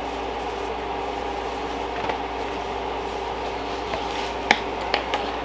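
Steady mechanical hum of room air conditioning, with a faint click about two seconds in and two sharper light clicks near the end.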